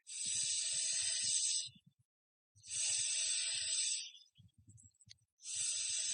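Three long hisses, each about a second and a half, with soft low squishy thuds between them from slime being handled.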